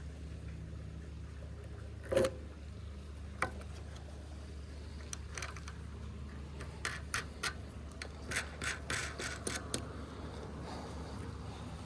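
New air filter being pushed into the engine's air filter housing by hand: short scraping and rubbing noises, with a sharp knock about two seconds in and a lighter one a second later.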